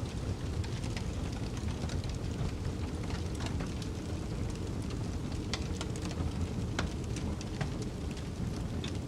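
Wood fire crackling in a fireplace, with scattered sharp pops and snaps over a steady low rumble of snowstorm wind outside.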